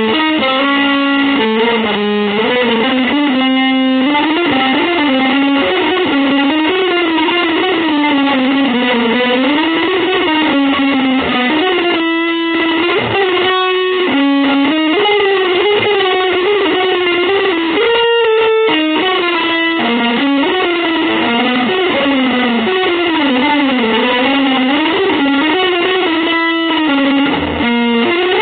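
Electric guitar playing fast, continuous single-note lines that wind up and down in pitch, with brief pauses about twelve and eighteen seconds in.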